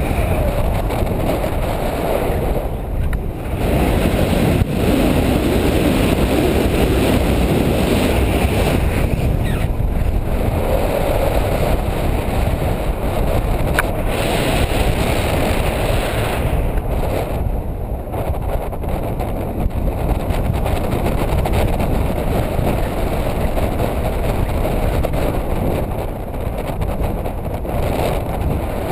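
Airflow buffeting a GoPro camera's microphone in paragliding flight: a steady, loud rushing roar that swells and eases a little.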